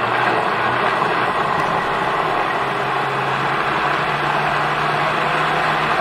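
Countertop blender running steadily on thick cooked squash puree thinned with chicken broth. Its motor hum steps up slightly in pitch about halfway through.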